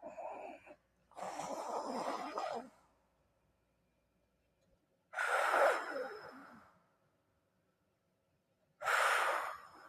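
A sleeper snoring: four noisy breaths with quiet gaps between them, the loudest about five and nine seconds in.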